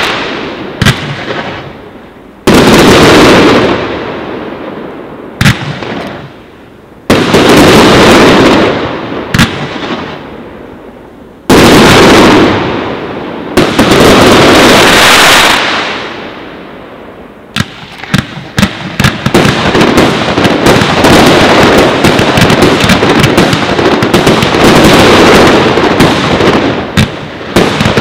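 Fireworks bursting overhead. First come several single heavy bangs, each trailing off over a few seconds. About two-thirds of the way through they give way to a dense, rapid crackle of many small bursts going off close together.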